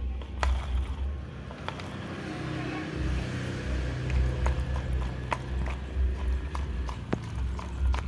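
Scattered light clicks and knocks of a twin-tub washing machine's plastic gearbox housing being handled, over a low rumble.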